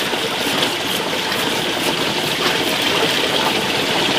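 Knife cutting through the tough skin of a pineapple in short, soft crunching strokes, over a steady rushing background noise.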